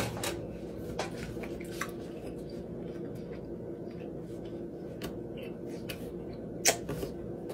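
A steady low hum with a few scattered small clicks and taps, the sharpest one near the end.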